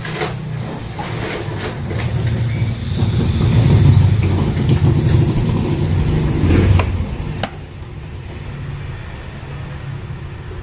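Low engine rumble that grows louder over a few seconds, then drops away about seven seconds in, with a few sharp knocks.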